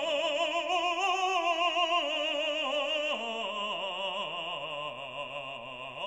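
Background music: an operatic voice singing with wide vibrato, holding long notes that step down in pitch about two and three seconds in.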